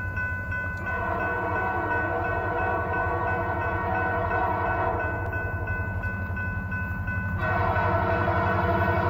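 Diesel locomotive horn on CP 2249, a GP20C-ECO, sounding a sustained chord as the train approaches. The horn gets louder about seven seconds in, over the low rumble of the locomotive.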